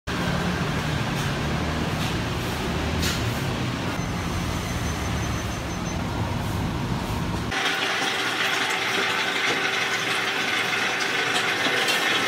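Steady ambient room noise with a low hum and a few faint clicks. About seven and a half seconds in it changes abruptly to a brighter, hissier kitchen background with a steady machine hum.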